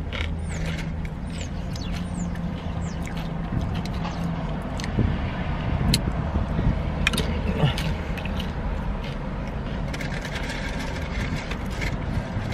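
Steady low hum of a car's idling engine inside the cabin, with scattered small clicks and rustles of food and packaging being handled.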